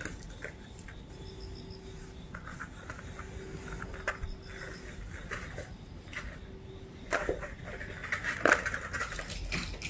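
Cotton rope strands rustling as they are dragged across a floor mat and gathered up by hand, with scattered light knocks and a cluster of louder knocks about seven to nine seconds in.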